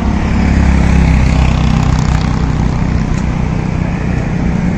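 Highway traffic: a steady low drone of heavy trucks' engines and tyres on the road.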